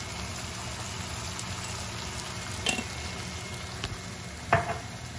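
Chopped onion, tomato and spices sizzling gently in butter and oil in a wok, a steady frying hiss. Two short clicks come from the glass spice jar being handled, the second one louder, near the end.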